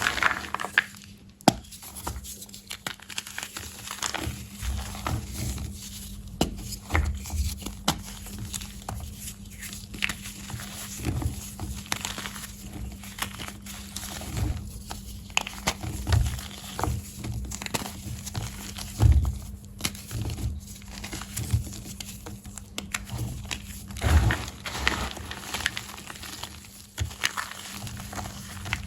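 Blocks of crunchy, soft gym chalk being squeezed and crushed, giving a run of irregular crunches and crumbles with dull low thuds.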